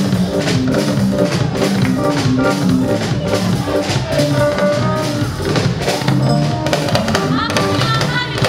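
A church choir singing live with a drum kit keeping a steady beat.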